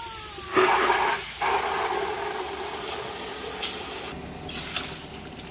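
Water gushing from a tap on a PVC pipe and splashing into a plastic bucket, a steady rushing hiss. Right at the start there is a short falling whine, and about half a second in a louder burst of splashing.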